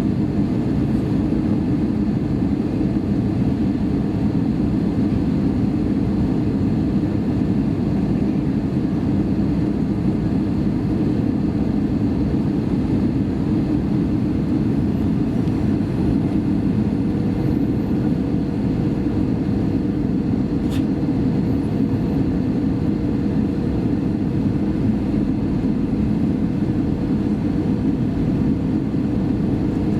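Steady cabin noise inside an Airbus A320 airliner: a constant low rumble of the engines and airflow. A faint steady hum joins about halfway through.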